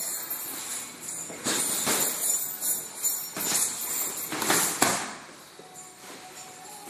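Boxing gloves landing in a sparring exchange: a flurry of sharp, irregular slaps, dying down about five seconds in.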